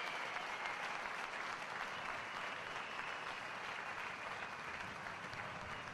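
Audience applauding steadily, slowly fading.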